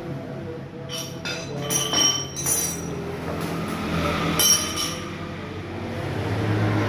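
Several sharp metallic clinks, metal parts or tools knocking together, over a steady low mechanical hum.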